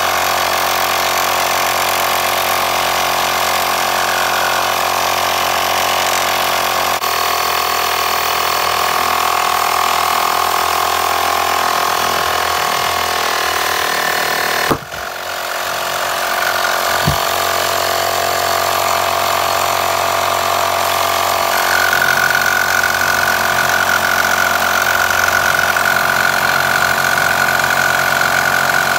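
Small 12 V portable tyre-inflator compressor running steadily, pumping air into a brake caliper to push its seized piston out. It cuts out sharply about halfway and picks up again, and a steady high whine joins in during the latter part.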